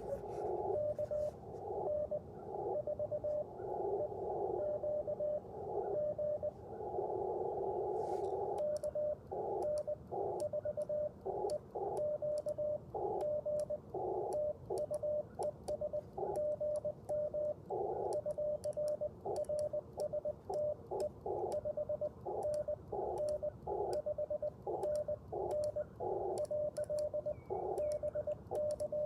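Morse code from an Icom IC-705 transceiver. For the first eight seconds or so, a station's CW signal is heard keying in and out of the receiver's narrow-filtered hiss. The hiss then drops out as the operator transmits, and the radio's own sidetone carries his reply in dits and dahs, with faint clicks from the twin-paddle key.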